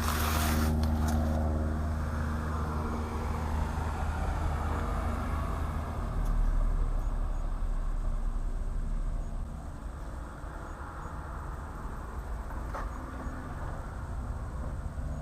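A car engine running steadily with a low hum. It eases off about nine seconds in.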